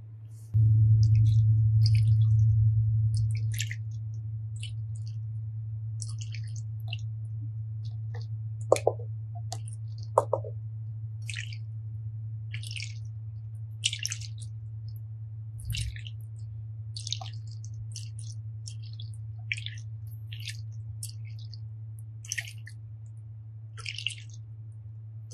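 Wet water beads squelching and crackling in short, scattered bursts as hands squeeze and knead them in a glass bowl, with two sharper clicks about nine and ten seconds in. A steady low hum runs underneath and is loudest for the first few seconds.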